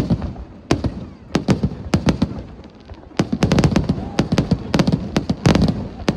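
Fireworks bursting overhead: rapid clusters of sharp bangs and cracks with echoing booms between them, easing off briefly about halfway through and then picking up again.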